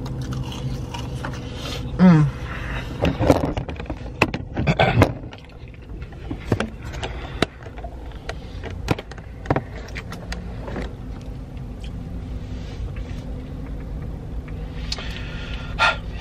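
Paper fast-food bags and wrappers rustling and crinkling in short bursts as food is handled, along with eating noises. There is a short falling 'mm' groan about two seconds in, and a steady low hum inside the car cabin throughout.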